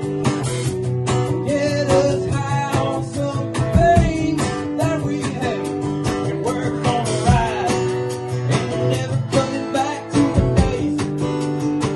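Live acoustic guitar and drum kit playing a country-grunge original song: strummed guitar with a steady beat on the drums, and a man singing over it.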